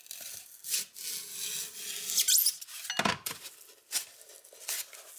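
Rotary cutter blade slicing through 1-inch styrofoam insulation board: squeaky, scraping cuts, with a sharp knock about three seconds in.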